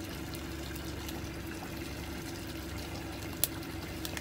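Steady trickle of running water over a low, even mechanical hum, with one sharp click about three and a half seconds in.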